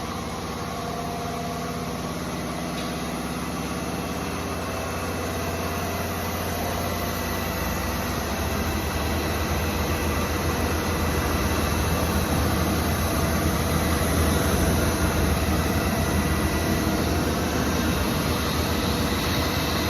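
22 kW two-stage permanent-magnet screw air compressor running, a steady mechanical hum with several steady tones. It grows louder over several seconds from about a third of the way in, then holds steady.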